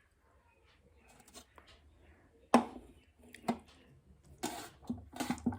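Close-up eating sounds: quiet at first, then a sharp mouth sound about two and a half seconds in, followed by short wet slurps and chewing.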